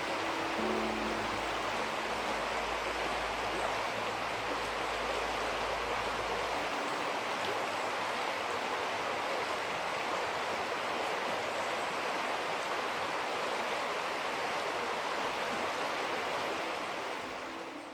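Rushing river water: a steady, dense roar of flowing water that fades out near the end.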